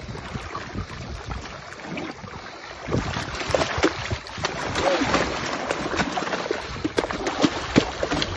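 Water splashing and slapping against a boat's hull as a hooked stingray thrashes at the surface alongside. The splashing gets louder and busier about three seconds in.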